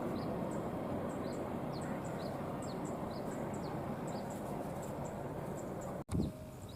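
A passing train's rumble dying away on the rails, steady and lower than just before. Birds keep up short, high, repeated chirps a few times a second. The sound cuts off abruptly about six seconds in.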